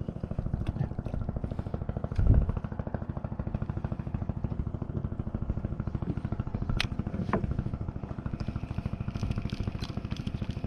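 A boat engine running steadily with a rapid, even pulsing throb. A louder thump comes about two seconds in, and two sharp clicks sound about seven seconds in.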